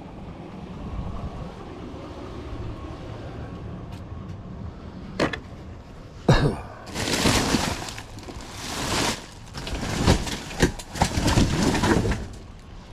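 Objects being rummaged through and handled in a dumpster: rustling and clattering with sharp knocks, in several bursts through the second half. A steady low hum runs underneath.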